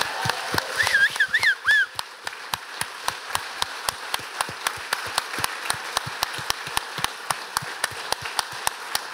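Audience applauding, with a few short whoops about a second in and one set of claps standing out, steady and even at about four a second.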